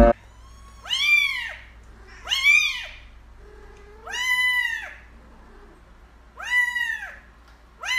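Kitten meowing repeatedly: five high meows spaced about a second and a half apart, each rising and then falling in pitch, the fifth starting at the very end.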